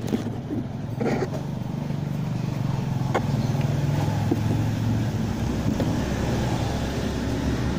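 A motor vehicle engine running steadily, getting a little louder, with a few light clicks and taps over it.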